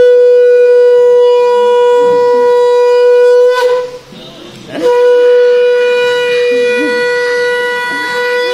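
Conch shell (shankha) blown in two long, steady blasts on one pitch, with a break of about a second between them for breath.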